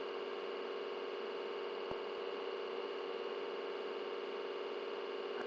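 Steady electrical hum with a hiss under it, with one faint click about two seconds in.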